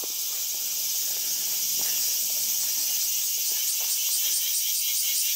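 Dense chorus of insects in the trees, a steady high-pitched buzz that takes on a rapid pulsing of about five beats a second about three and a half seconds in. Faint footsteps on stone paving sound underneath.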